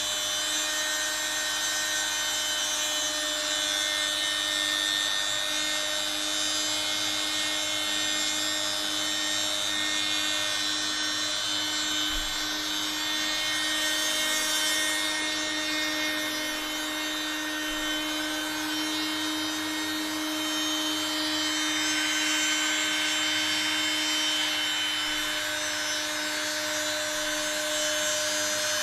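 Homemade CNC router cutting plywood: its hand-power-tool spindle runs with a steady whine while the bit routes the wood.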